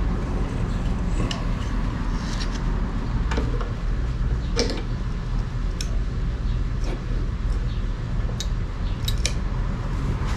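Scattered small metallic clicks and taps as a stylus is worked onto the tool holder at the end of an ArcDroid CNC plasma robot's arm, a tight fit. A steady low hum runs underneath.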